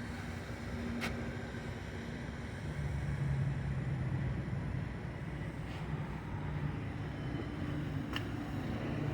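Semi truck's diesel engine running steadily, its note dropping and getting slightly louder a little under three seconds in, with a few faint clicks.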